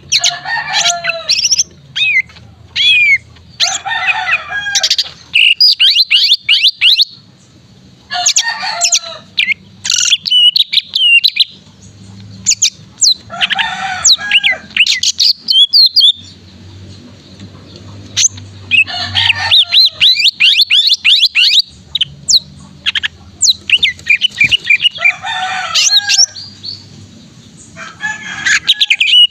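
Male cucak ijo (green leafbird) singing in loud bursts of rapid, varied chirps, trills and whistled sweeps, each phrase a second or two long and repeated every couple of seconds.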